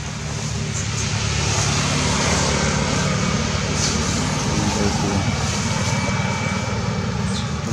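A steady low engine drone, swelling over the first two seconds and then holding steady.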